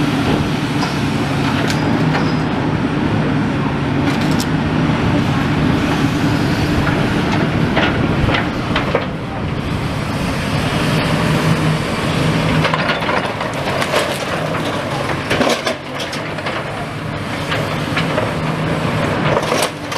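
Heavy demolition machine's diesel engine running steadily, with scattered knocks and cracks of masonry and rubble being pulled down.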